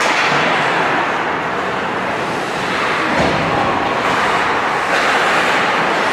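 Steady noisy wash of an ice hockey game in a rink, skates and play on the ice, with faint voices in it.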